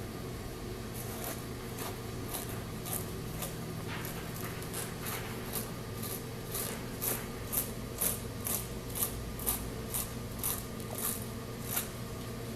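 A hand tool scraping repeatedly against tire rubber, in short strokes about two a second that grow louder toward the middle and stop near the end.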